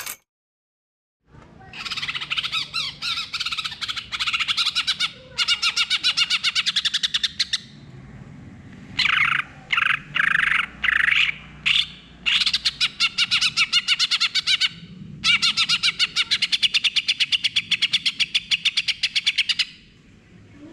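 Cucak hijau (green leafbird) singing in loud, rapid-fire runs of fast repeated notes in several long bursts, the 'gacor full nembak' song that keepers play to set silent leafbirds singing. The song starts about a second in.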